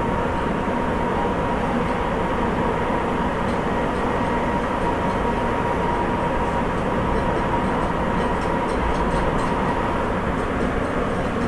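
Sapporo Municipal Subway 8000 series train with Toshiba IGBT-VVVF drive, running steadily between stations on its rubber tyres: an even rumble of the running gear. A faint steady tone is heard over it and fades out near the end.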